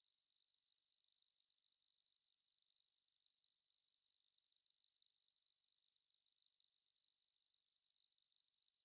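A steady, high-pitched pure sine tone, the simulated ringing of tinnitus, holding one pitch without change. A much fainter second tone sits about an octave above it.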